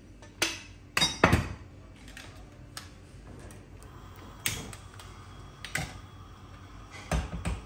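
About half a dozen scattered sharp clinks and knocks of metal kitchenware, a ladle and steel cup against an aluminium karahi and the stovetop, over a faint steady hiss.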